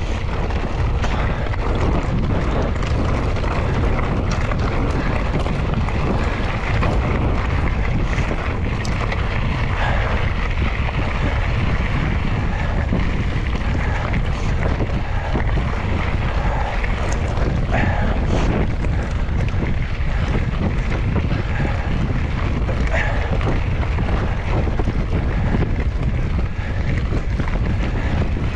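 Mountain bike riding down a rough trail, with wind rumbling steadily on the microphone and scattered clicks and rattles from the bike and tyres over stones.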